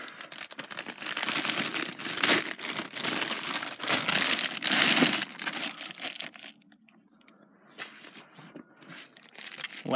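Clear plastic packaging crinkling and rustling as it is handled while a small tripod is unwrapped. It is dense and busy for about six and a half seconds, then drops to a few softer rustles.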